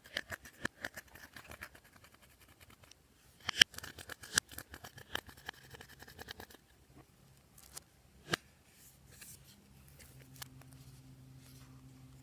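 Glossy slime being squeezed and worked by hand, giving runs of quick sticky clicks and crackles with a pause between them and one sharper pop later on. A faint steady low hum comes in near the end.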